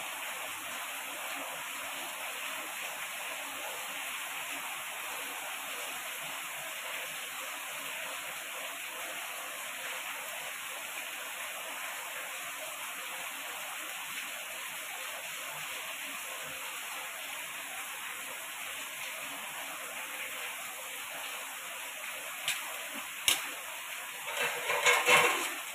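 Steady soft sizzling hiss of cheese-topped puris cooking on a hot tawa over low flame. A few sharp clicks and a brief clatter come near the end.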